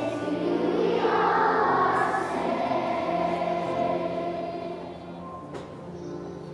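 Choir singing with musical accompaniment, the voices holding long sustained notes.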